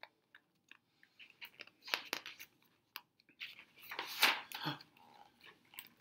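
Paper rustling and crinkling as a picture book's page is handled and turned, with small clicks and a few short crackling bursts, the longest about three and a half to five seconds in.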